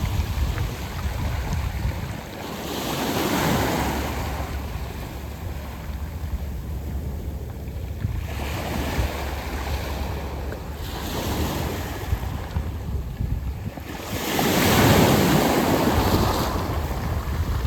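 Sea waves washing in and out over a beach of smooth round pebbles, coming in about four surges of rushing water, the biggest near the end. A low wind rumble on the microphone runs underneath.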